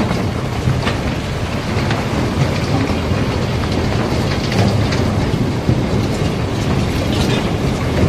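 Loose broken rock and iron ore sliding and tumbling down a barge's hold into the unloading opening: a continuous rattling rumble with scattered sharper knocks of stones striking.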